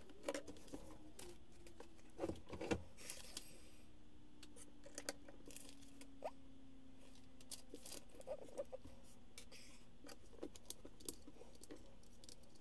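Scattered small clicks and taps of Lego plastic pieces being handled, pressed together and set down on a wooden tabletop, with a louder cluster of knocks about two seconds in.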